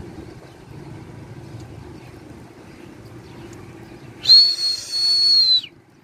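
A single loud, shrill whistle about four seconds in, held at one high pitch for about a second and a half and dipping slightly as it stops, over a low steady background rumble.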